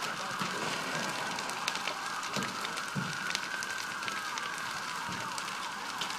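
A burning house crackling, with a siren wailing over it; the siren's pitch slides down a little past the middle.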